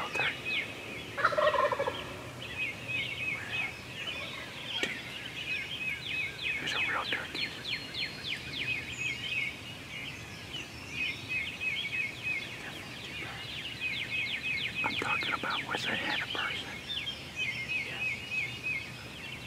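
A wild turkey gobbler gobbles loudly about a second in, and fainter gobbles follow later on. Songbirds trill steadily throughout.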